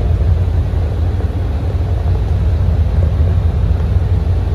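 Heavy rain pouring on a vehicle's roof and windows, heard from inside the cabin over a steady low rumble.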